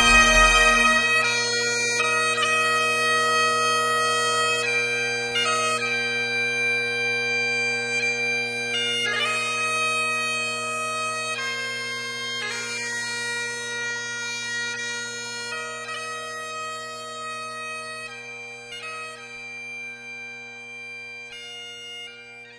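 Great Highland bagpipes playing a tune over steady drones, gradually fading out.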